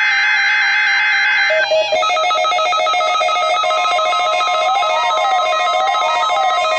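Electronic alert tones on a NOAA Weather Radio weekly test. For the first second and a half a warbling data tone plays, like a SAME digital header burst. Then a chord of steady electronic tones takes over, one of them slowly wavering up and down in pitch about once a second.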